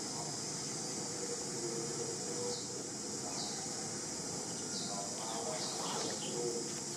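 Steady high-pitched insect chorus of the forest, a continuous shrill hiss, with several short high notes sliding downward scattered through it.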